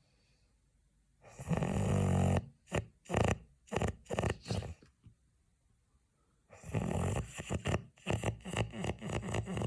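A sleeping person snoring loudly in heavy, rattling snores. A long snore about a second in is followed by a run of short, choppy snorts, then a pause. Another long snore and a quick series of snorts come near the end.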